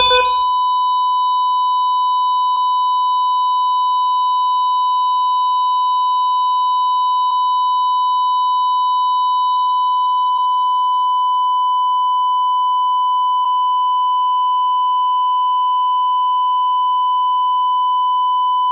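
ECG heart monitor flatline: one continuous, steady high beep held without a break, the sign that the pulse has stopped.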